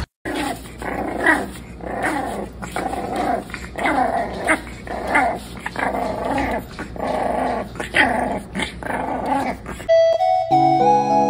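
Puppies play-growling and yapping at each other in a rapid string of short calls that fall in pitch, about one and a half a second. About ten seconds in they give way to gentle keyboard music.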